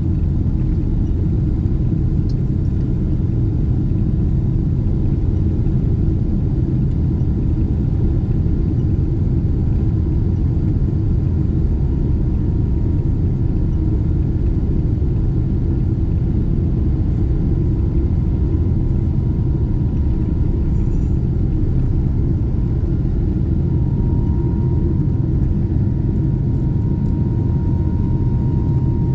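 Boeing 777-300 airliner cabin noise: a steady, loud rumble of the Pratt & Whitney jet engines and airflow, heard from a window seat just ahead of the engine. A thin whine joins about halfway through and grows stronger near the end.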